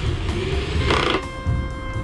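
Background music with held notes and a steady low beat, with a short burst of noise about a second in.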